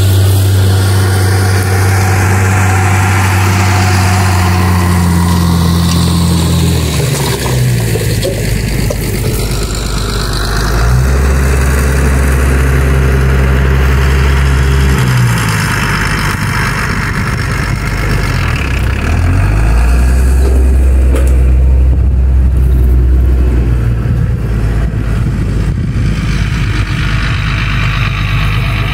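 Ursus 1614 tractor's diesel engine running under load while it pulls a disc harrow. The engine note drops and picks up again several times.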